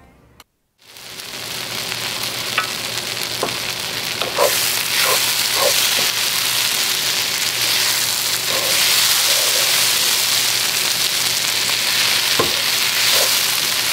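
Sliced onions sizzling as they fry in olive oil until browned, stirred with a wooden spoon that now and then scrapes and knocks against the pan. The sizzle builds over the first couple of seconds and gets louder about four seconds in.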